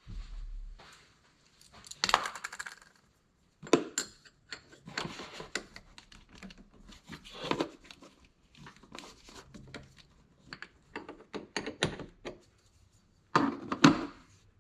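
Metal hand tools and small metal parts clinking and clattering in irregular bursts, as in work on a truck's battery connections under the hood; the loudest clatter comes near the end.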